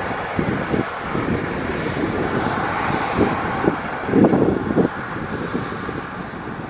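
Embraer 190 airliner's twin turbofan engines running at low taxi power as the jet rolls past, a steady jet hiss. Gusts of wind buffet the microphone, strongest about four seconds in.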